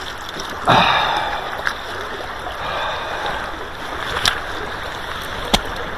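River current running steadily around a wading angler, with a short splash a little under a second in and a few sharp clicks later.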